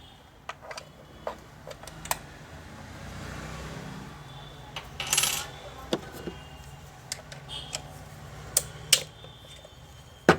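Scattered sharp metallic clicks and clinks, with a brief louder rasp about five seconds in, from an Allen key and tools working the screws on a sewing machine's metal housing.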